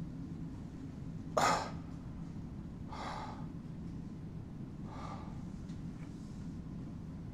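A man gasping for breath: three short, ragged gasps about two seconds apart, the first the loudest, over a steady low hum.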